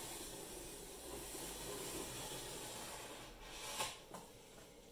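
Craft knife blade drawn along a straight edge through thick XPS foam board, a steady scratchy rubbing that stops about three seconds in. A brief light knock follows near the end.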